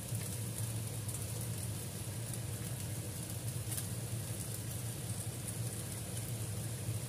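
Ground meat frying in a stainless steel pan, a steady sizzling crackle over a low hum.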